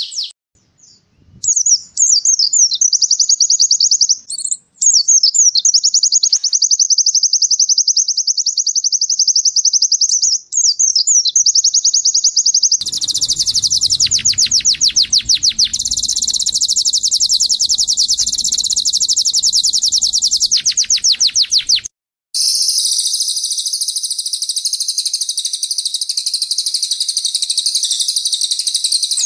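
Songbirds singing long, very rapid, high trills of repeated notes, starting after a short pause. The sound changes abruptly twice, to a louder, fuller trill about halfway through and to another trill near the three-quarter mark, as separate recordings are spliced together.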